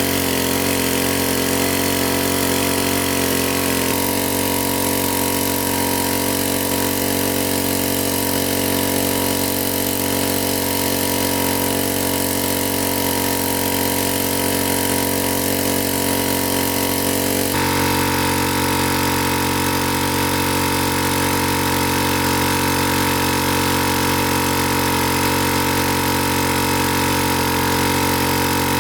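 A small engine running steadily at a constant speed. Its tone changes abruptly about four seconds in and again a little past the middle.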